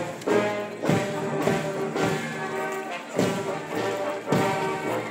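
Brass band playing a march: held brass chords over drum beats.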